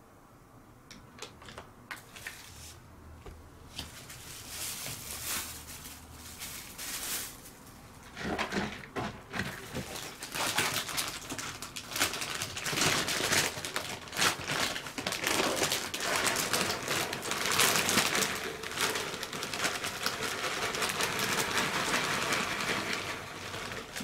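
Cat litter being handled: faint scattered clicks in the litter box at first, then from about eight seconds in a louder, dense rattle and crinkle as a plastic bag of granular cat litter is handled and the pellets are poured into the hooded litter box.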